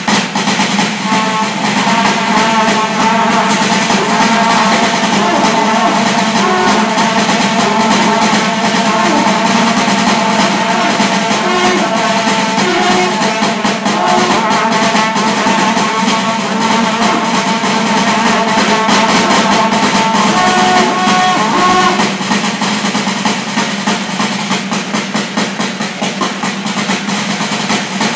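Long brass karnay horns blaring over a drum kit, with a steady low drone under a higher tune. The tune stops about three-quarters of the way through while the drumming and drone carry on.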